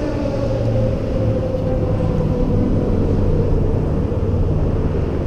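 Engine drone of a passing vehicle: a low rumble with a pitched tone that falls slowly as it goes by.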